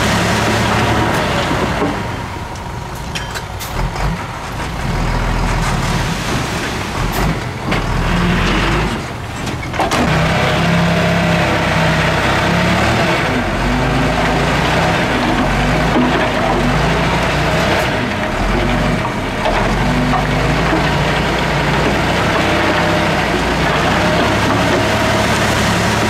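Heavy diesel earthmoving machine's engine running under load, its note shifting as it works. It dips briefly a couple of times in the first ten seconds, with a few knocks.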